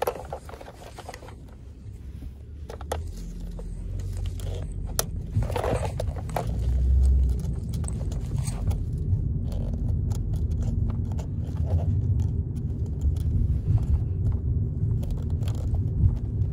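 Low rumble of a car cabin on the move, building a few seconds in and then holding steady, with small clicks and scrapes of fingers handling a plastic toy bus.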